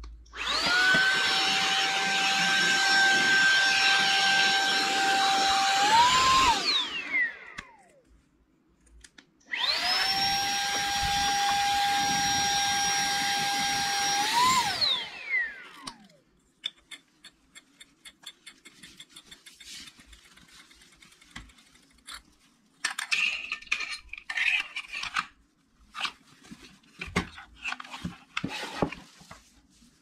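Baseus 135W cordless handheld vacuum cleaner run twice, about six seconds each time: the motor whines at a steady pitch, steps up in pitch just before it is switched off, then winds down with a falling whine. In the second half, clicks and rustles of the vacuum being handled.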